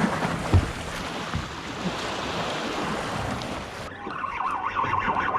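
Wind and water noise on an open kayak at sea, with a couple of low knocks in the first second and a half. About four seconds in, the sound turns muffled and dull.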